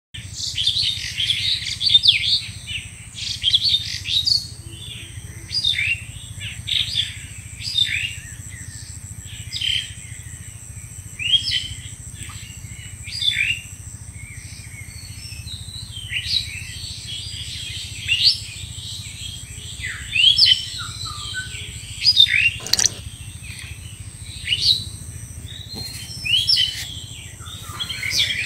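Birds chirping, short sharp calls repeated every second or two, over a steady high-pitched tone and a low hum.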